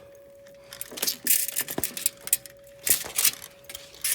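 Rattling and clicking of a window shutter being worked by hand, in several short bouts, over the faint, steady single tone of a distant tornado siren.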